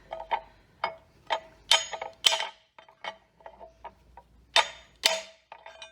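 Spanner and metal engine parts clinking: an irregular run of sharp metallic taps and clicks, each with a short ring, loudest about two seconds in and again near five seconds.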